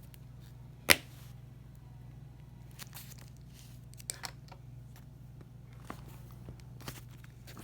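Hole puncher punching through a stack of about seven notebook pages: one sharp, loud snap about a second in, followed by a few fainter clicks and rustling.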